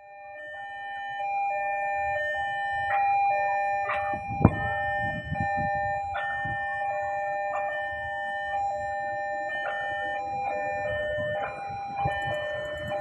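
Railway level-crossing warning alarm sounding: an electronic two-tone signal alternating between a higher and a lower note, warning of an approaching train. A single sharp knock about four and a half seconds in.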